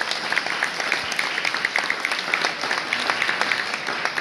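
Audience applauding, with one person's claps close by standing out sharply above the rest.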